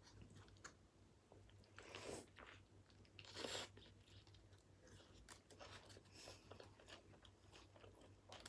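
Quiet close-up mouth sounds of a person biting into and chewing a burger. Small clicks are scattered throughout, and two louder short bites come about two seconds and three and a half seconds in.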